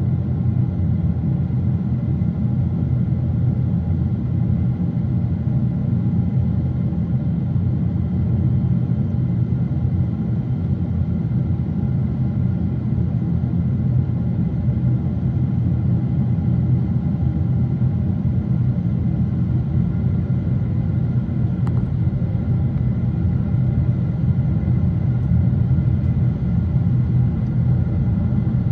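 Steady low roar of a Boeing 777 in flight, heard inside the passenger cabin: engine and airflow noise, with a faint steady whine above it.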